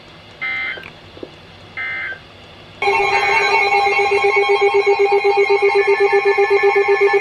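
Two short buzzing digital data bursts from an Emergency Alert System SAME signal, marking the end of the weather radio message. Then, about three seconds in, a loud, steady EAS attention tone starts suddenly.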